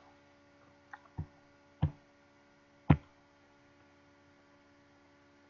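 A faint, steady electrical hum, with four short knocks in the first three seconds; the last knock is the loudest.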